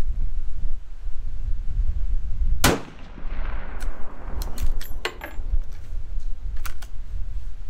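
A single rifle shot from a Marlin 336 lever-action in .30-30 Winchester, nearly three seconds in, its echo fading over about a second and a half. A run of short metallic clicks and clacks follows as the lever is worked. Wind rumbles on the microphone underneath.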